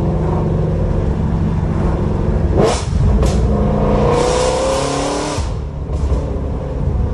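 Loud Shelby sports car's engine and exhaust running while driving, the engine note rising as it accelerates about four seconds in, with a rush of noise over it.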